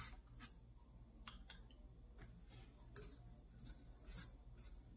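Faint, irregular ticks and light taps of a plastic stirrer knocking against the sides of foam cups as coffee is stirred, about nine in all.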